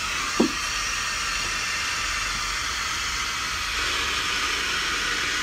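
Air hissing steadily into a sealed dry suit through its chest inflator valve, fed from a scuba tank by the low-pressure inflator hose as the suit is filled for a leak test. A brief falling-pitched sound about half a second in.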